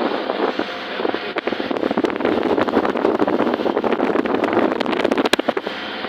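Small motorboat running under way, with wind buffeting the microphone and rapid crackling thumps from about a second and a half in.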